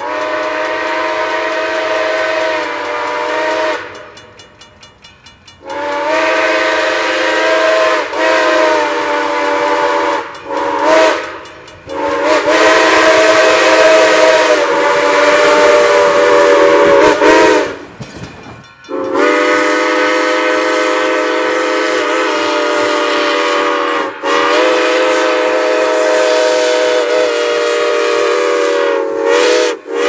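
Grand Trunk Western six-chime steam whistle on Black River & Western locomotive No. 60, blowing a series of long chord blasts with a couple of short toots in between. Each blast sags slightly in pitch as it cuts off.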